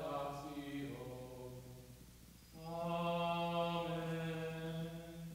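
A man's voice chanting a slow liturgical hymn in long held notes. The first phrase falls away and fades about two seconds in; after a short breath a single long note is held almost to the end.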